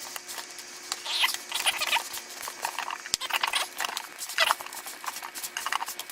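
Wet grated-potato latke mixture being mixed and turned over in a bowl, giving irregular wet squishing strokes. A single sharp click about three seconds in.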